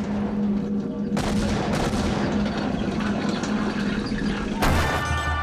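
Drama soundtrack battle effects: a loud, dense clattering rumble with sudden surges over a held low tone. A loud surge near the end brings in music with a steady bass.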